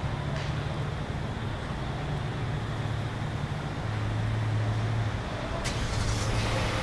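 Street traffic with a nearby vehicle engine idling as a low steady hum that drops in pitch about four seconds in, and a short sharp hiss near the end.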